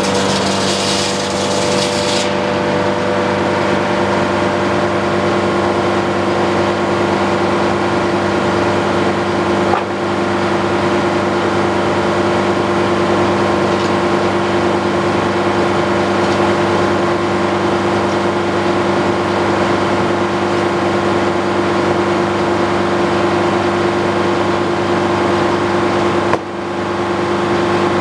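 Antique circular sawmill running steadily, its power unit and spinning blade holding an even hum. A short hiss sounds in the first two seconds, and the level dips briefly near the end.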